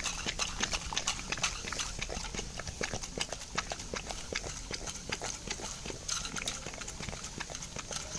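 American bully dog eating raw eggs: rapid, irregular wet chewing and smacking clicks, several a second.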